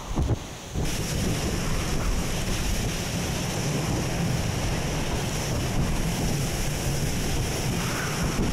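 Typhoon winds gusting hard with rain sheeting across open ground. Heavy wind buffeting on the microphone makes a steady low rumble under the hiss of the rain.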